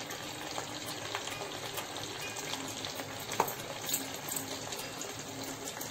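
A sama (barnyard millet) flour poori deep-frying in hot oil: a steady sizzle with scattered small crackles.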